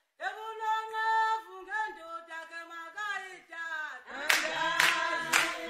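Unaccompanied singing by a single high voice. About four seconds in, three sharp hand claps about half a second apart, with lower voices joining in.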